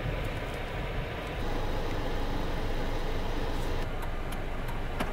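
Steady low rumble of a running car heard from inside the cabin.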